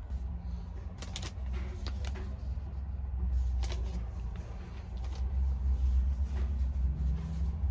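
Rustling of fabric and a bag being handled on a bed, with a few light clicks and knocks over a steady low rumble.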